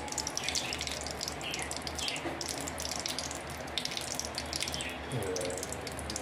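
Ghee melting and sizzling in a kadai over the flame, with a steady crackle of tiny pops.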